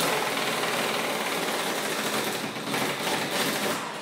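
Pneumatic impact wrench hammering continuously as it runs out a 9/16-inch fuel tank strap bolt. It starts abruptly and dies away just before the end.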